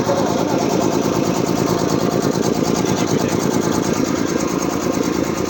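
Puma 5 hp high-pressure piston air compressor running steadily under test, a loud, even, rapidly pulsing mechanical chug.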